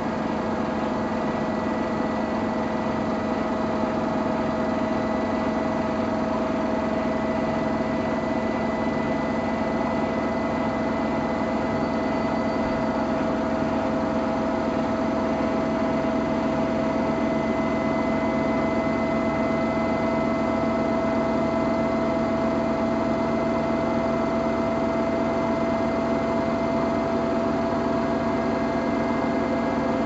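Samsung Eco Bubble front-loading washing machine running a colour wash cycle: a steady motor hum and whine over the turning drum, its pitch creeping slightly upward.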